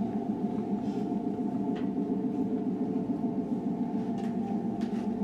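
A steady low drone of several held tones from the soundtrack of the projected space footage, with a few faint clicks over it.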